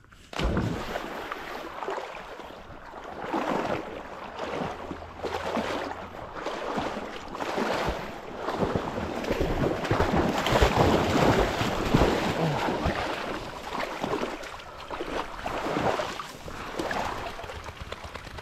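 Dry grass and brush rustling and swishing in uneven surges, with crackles, as a hunter pushes through cover on foot.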